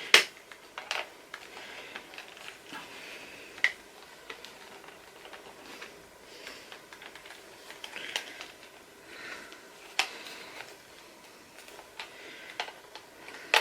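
Hard plastic Playmobil toy pieces clicking and knocking while being handled, as a dragon figure's wing is pushed into its socket. Scattered sharp clicks, the loudest just after the start and again about 10 seconds in, with soft handling rustles between.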